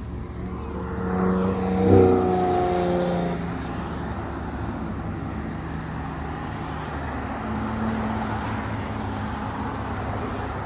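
Audi R8 engine idling as the car edges toward the road, its note swelling briefly about two seconds in, then settling to a steady low idle among passing traffic.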